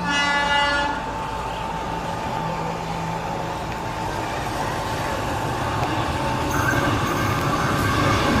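Sri Lanka Railways Class M4 diesel locomotive No. 743, running light, sounds a short horn blast of about a second. Its engine and wheels then run on, growing slowly louder as it approaches.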